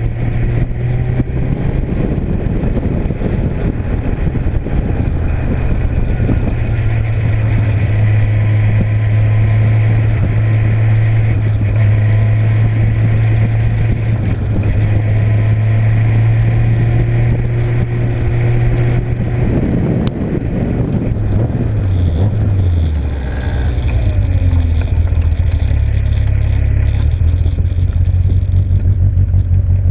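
Engine of an open Seven-style sports car on an Emerald K6 ECU, heard from the open cockpit with wind noise. It pulls at a steady pitch for most of the time. About two-thirds of the way in the revs fall in steps as the car slows, and it then runs on at a lower steady note.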